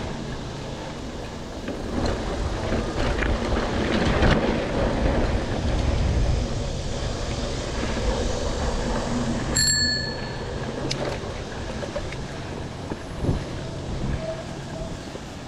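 Mountain bike rolling fast over a dirt singletrack, with steady tyre noise and scattered knocks from the bike over bumps. About two thirds of the way through, the handlebar dome bell rings once with a sharp ding that fades within half a second.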